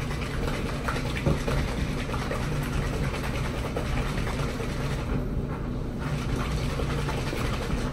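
Steady low rumble and hum of a running laundry machine, overlaid with light handling clicks as small bottles of hair dye are moved about.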